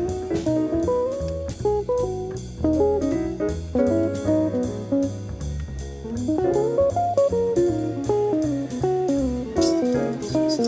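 Background music: guitar-led instrumental with plucked notes over a bass line.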